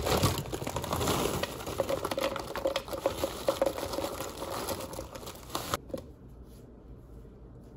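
Plastic bag of frozen blueberries crinkling as the berries are tipped out into a blender cup of ice, with many small clicks of the hard frozen berries landing; the rustling stops abruptly about six seconds in, leaving only a few faint clicks.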